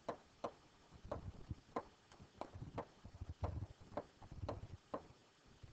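Stylus tapping and knocking on a pen-input writing surface while words are handwritten: faint, irregular sharp ticks with soft low knocks, about two a second.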